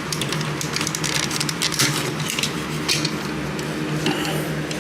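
Irregular plastic clicks, knocks and scrapes as a smoke alarm's cover is handled and opened, over a steady low hum.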